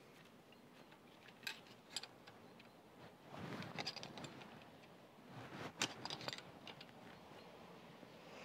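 Faint metallic clicks and scrapes of a ring spanner and screwdriver working the tappet adjuster lock nut on a Gardner diesel engine's valve rocker, as the nut is tightened down. There are a couple of sharp clicks about a second and a half and two seconds in, then two short stretches of scraping.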